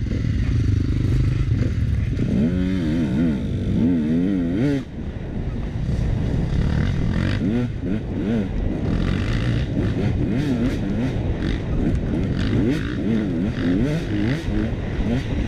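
KTM dirt bike engine revving, its pitch swinging quickly up and down several times a few seconds in, then rising and falling with the throttle as the bike rides along a wooded dirt trail.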